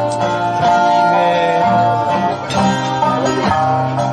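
Live Okinawan island song: a sanshin plucking the melody over a strummed acoustic guitar, at a steady tempo.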